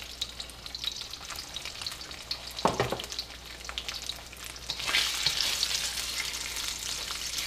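Chicken pieces sizzling and crackling in hot peanut oil in a steel wok, with a brief clunk about three seconds in. The sizzle grows louder about five seconds in as the chicken is stirred with wooden chopsticks.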